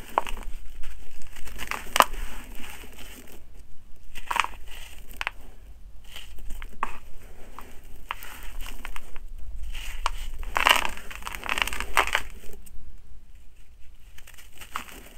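Hands crushing dry, gritty soil blocks, with a crunching crackle as the blocks break and crumbs and grit fall into loose soil. It comes in spells of crumbling, the densest about two-thirds of the way through.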